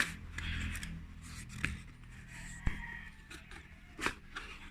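Router packaging handled by hand: rustling and scraping, with a few sharp clicks and taps spread through.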